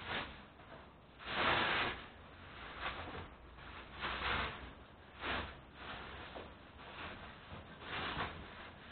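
Packaging rustling in irregular bursts as something is unpacked and handled by hand, the loudest burst about a second and a half in.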